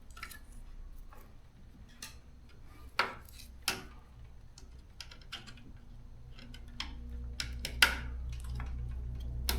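Scattered light metallic clicks and clinks of a screwdriver and small screws being handled, with a low steady hum coming in about halfway through.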